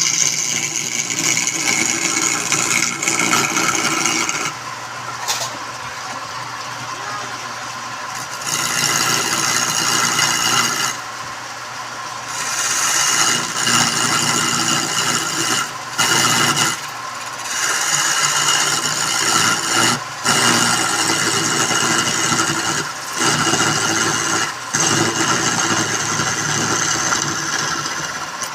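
Wood lathe running with a turning tool cutting the spinning wood: a steady machine hum under spells of louder scraping that come and go every few seconds, with quieter stretches about five to eight seconds in and around twelve seconds.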